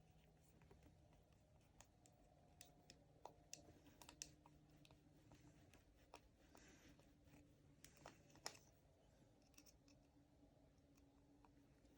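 Near silence with faint scattered clicks and light handling sounds: small screws and grinder parts of a salt or pepper mill kit being worked by hand with a screwdriver.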